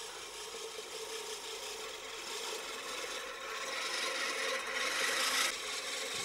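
Hand-pushed reel lawn mower cutting grass: the spinning cylinder blades make a steady whirring rasp. It grows louder over the first five seconds, then eases off about five and a half seconds in.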